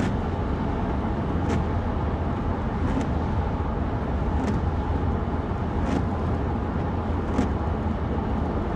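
Steady road and engine noise inside a moving car's cabin, mostly a low rumble, with a faint tick about every second and a half.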